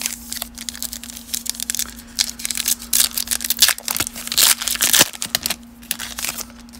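Foil wrapper of a 2020 Donruss baseball card pack being torn open and crinkled as the cards are slid out, a dense crackling that stops near the end.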